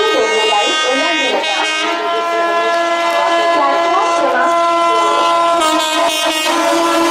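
Air horn of a WAP-4 electric locomotive sounding one long, steady blast as the express runs through the station at speed, with a brief rattle of wheels on the rails about six seconds in.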